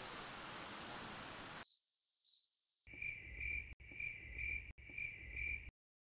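Crickets chirping faintly. First comes a short high chirp repeating about every three-quarters of a second over a soft hiss. After a brief gap comes a lower, double-pulsed chirp, three times about a second apart, which then cuts off.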